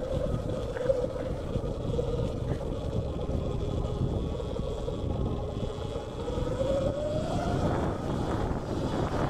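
Sur-Ron Light Bee X electric dirt bike's motor and drivetrain whining under way, the pitch easing off a little and then rising about two-thirds of the way through as the bike speeds up. Wind rumble on the microphone and tyre and suspension noise from the rough trail run underneath.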